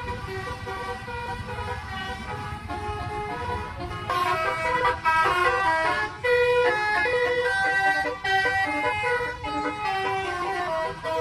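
Bus telolet horn, a set of air horns playing a melody of stepped notes, with the bus engine running underneath. The horn gets much louder about four seconds in.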